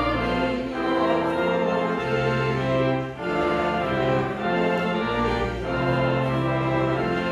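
Church organ playing slow, sustained hymn chords, the chords changing every second or two.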